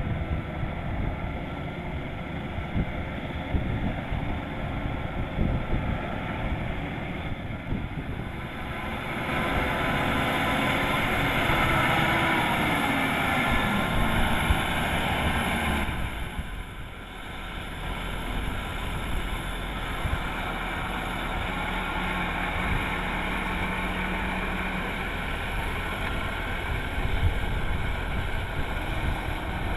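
Kubota DC-105X rice combine harvester running under load as it harvests, a steady machine drone. It grows louder about a third of the way in, with a falling note in the middle, and drops back briefly about halfway through before running on.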